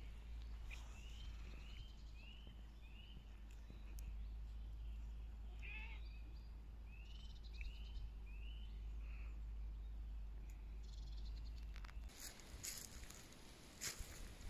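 A bird calling: two runs of short whistled notes that rise and fall, about four in each run. A steady low rumble lies under them, and rustling and clicks come in near the end.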